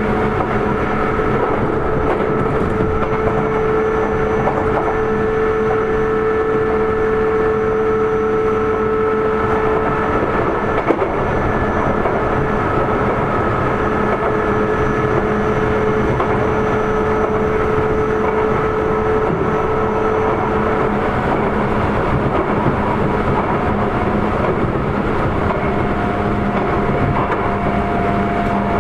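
Sotetsu 8000 series electric train heard from inside the car while running at speed: a steady rumble of wheels on rail, with the steady whine of its Hitachi IGBT-VVVF traction equipment over it. One middle whine tone drops out about two-thirds of the way through, and a higher tone comes in near the end. A single knock sounds about 11 seconds in.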